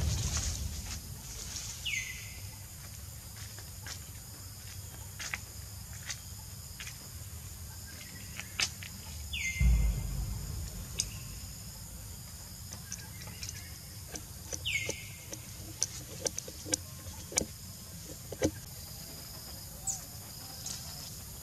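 Outdoor natural ambience: a bird's short whistle, falling in pitch, repeats three times several seconds apart over a steady high insect hum. Scattered small clicks and two low rumbling thumps run through it, one at the start and one about halfway.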